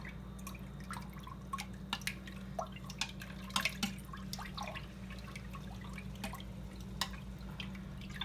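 Milk being stirred gently with a utensil in a stainless-steel pressure-cooker insert: scattered small liquid plops and light clicks, over a steady low hum.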